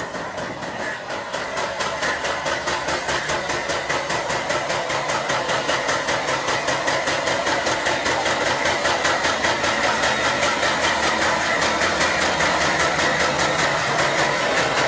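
Diesel locomotive engine running as the locomotive rolls slowly past, with an even throbbing beat of about four to five pulses a second and a steady high whine, growing louder as it draws near.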